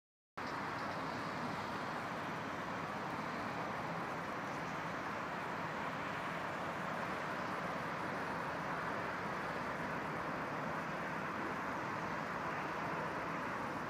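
Motorway traffic noise: a steady rush of tyres and engines from vehicles on the M9, starting abruptly just after the start.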